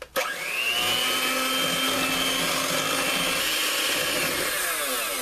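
Electric hand mixer with twin wire beaters whipping heavy cream toward firm peaks in a stainless steel bowl. The motor whine rises as it is switched on, runs steadily, and falls away as it winds down near the end.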